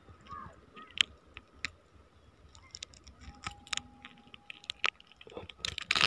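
Scattered small clicks and taps of hands handling a caught grouper while threading it onto a rope stringer, the loudest about a second in.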